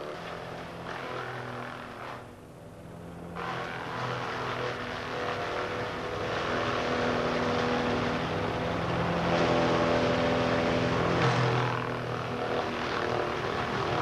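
A tractor-driven Entec Chippet PTO Hydraulic wood chipper running and chipping brash, its engine note under the noise of the cutter head. The sound dips briefly about two seconds in, then builds louder as more material is fed.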